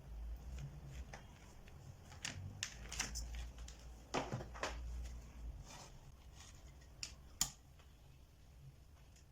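Scattered light clicks and taps of handling, about a dozen, irregularly spaced, over a low rumble that stops about halfway through.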